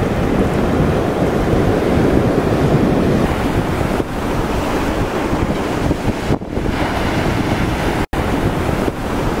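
Ocean surf breaking and washing around the wooden pilings of a beach groin, with wind buffeting the microphone. The sound cuts out for an instant about eight seconds in.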